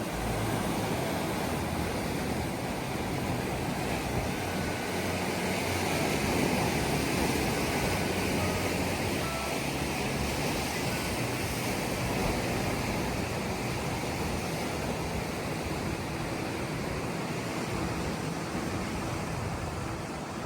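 Steady rush of wind and sea water with a low motor drone underneath, as on a speedboat out at sea.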